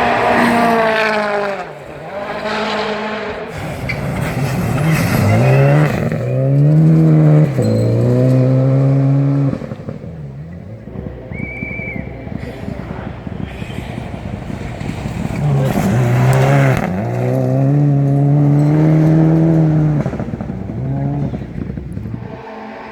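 Mitsubishi Lancer Evolution rally car engine driven hard, its pitch climbing and dropping again and again as it shifts through the gears. Between the runs it is quieter and crackles from the misfiring (anti-lag) system, and a brief high whistle comes about eleven seconds in.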